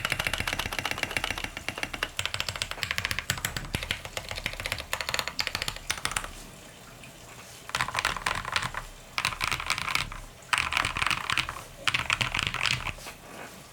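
Custom mechanical keyboard with lubed Tecsee Diamond switches and SA-profile keycaps, in an acrylic tray-mount case with an aluminum plate and PE foam, typed on fast. Rapid key clacks run for about six seconds. After a short pause come four quick bursts of typing.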